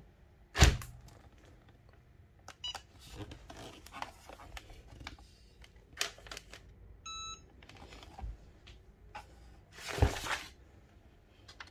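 Cricut EasyPress heat press set down with a loud knock, then quiet handling, then a quick run of short electronic beeps from its timer about seven seconds in, and a second knock with rustling as the press is lifted about ten seconds in.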